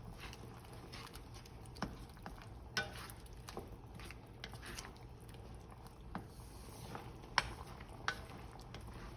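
A utensil stirring a pot of curry sauce, with several light, scattered clinks against the pot over a faint steady background.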